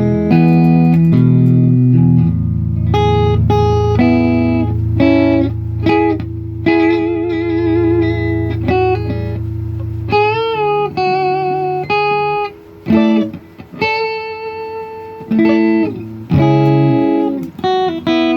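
Electric guitar with magnetic and piezo pickups, set to the single-coil neck pickup, played clean: picked chords and single-note lines, some notes held with wide vibrato, over a low note that rings through the first half.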